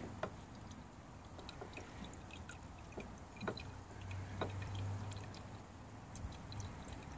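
Faint clicks and taps of a diesel fuel filter cartridge being slowly drawn up out of its canister, with diesel dripping from the old filter back into the canister. Four sharper clicks stand out among small ticks.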